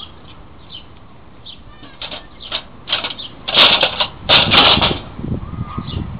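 A squirrel caught in a wire-mesh Havahart cage trap, agitated: a run of short, sharp clicks and chatters as it works at the wire cage. About three and a half seconds in come two louder, harsher bursts, then a few dull knocks.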